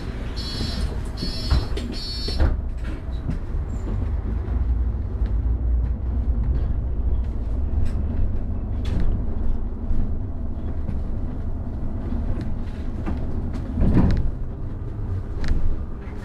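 City bus cabin: a warning beeper sounds four times in quick succession, then the engine runs as the bus pulls away, with the cabin rattling and knocking; a louder knock comes near the end.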